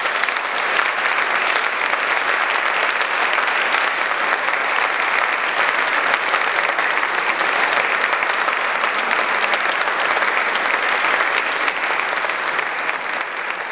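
Audience applauding in a hall, a steady sustained round of clapping that thins out near the end.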